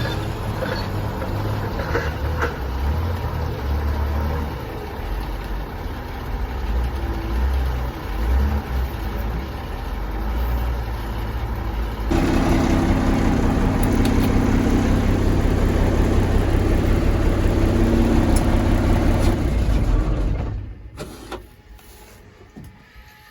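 Straight truck's engine running; about 12 seconds in the sound changes abruptly to a louder, steadier idle with a hum, and a little after 20 seconds the engine shuts off.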